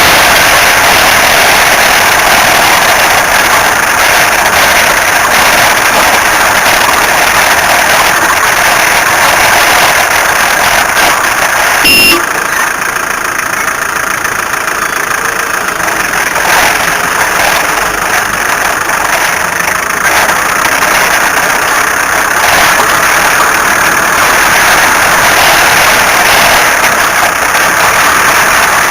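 A car running with a loud, steady, rough noise throughout, and one short sharp click about twelve seconds in.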